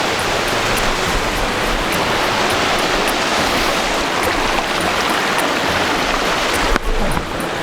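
Rushing water of a mountain stream, a steady, loud hiss, with some low wind rumble on the microphone; the sound shifts abruptly near the end.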